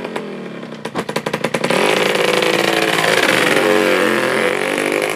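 Small motorcycle engine revving as the bike pulls away and rides off. It pulses rapidly about a second in, then runs louder from about two seconds in, its pitch gliding up and down.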